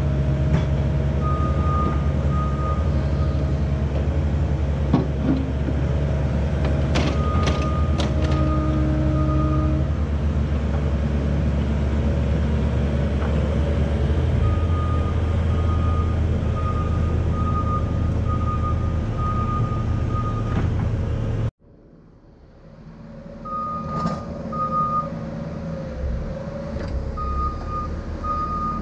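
Cat 305E2 mini excavator's diesel engine running steadily, with a high warning beeper pulsing in spells and a couple of sharp metal clanks around seven and eight seconds in as buckets are swapped. The sound cuts out abruptly about two-thirds of the way through and fades back in to the engine and beeping.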